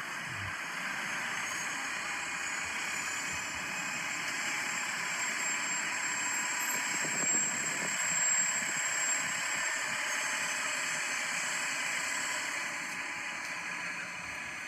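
City transit bus engine running, with steady engine and road noise that swells a little midway.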